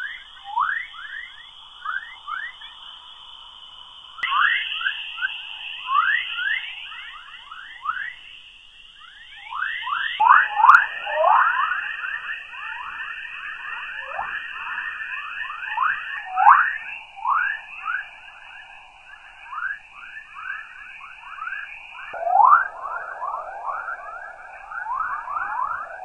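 Sonification of Earth's 'chorus' plasma waves in the radiation belts, recorded by NASA's twin Van Allen Probes: a dense stream of quick rising chirps over a steady high tone. The chirps grow thicker and start lower from about ten seconds in.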